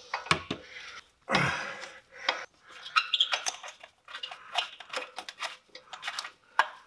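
Irregular metallic clinks and knocks of tools on the car's exhaust while a seized oxygen sensor is being worked loose, with a short louder burst of noise about a second in.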